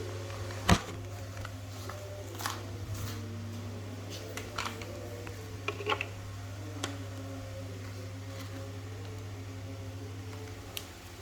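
A steady low hum with scattered light clicks and knocks; the sharpest click comes just under a second in, with a few fainter ones after it.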